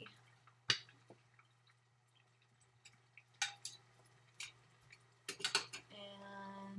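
Scattered clinks and knocks of metal tomato cans and cookware being handled, with a quick cluster of clinks about five seconds in, followed by a short steady pitched sound near the end.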